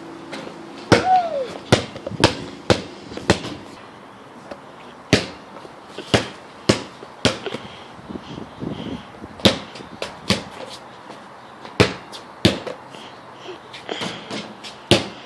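A basketball bouncing on a concrete slab, dribbled in short runs of sharp bounces about two a second, with pauses between the runs.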